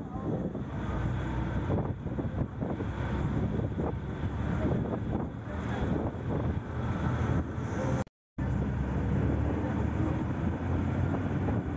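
Moving vehicle's steady low road and engine rumble, heard from inside while driving. The sound cuts out completely for a moment about eight seconds in.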